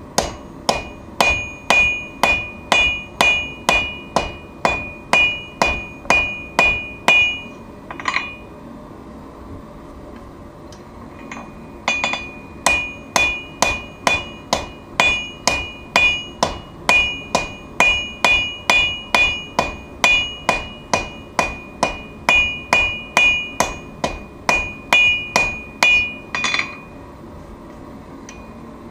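Hammer blows on steel at an anvil while forging a knife. The strikes come in a steady rhythm of about two to three a second, and each one rings. There is one run, a pause of about four seconds, then a longer run.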